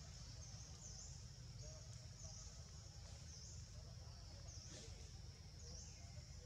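Faint forest ambience: a high-pitched animal call repeating about once a second over a steady high drone and a low rumble, with one faint snap about five seconds in.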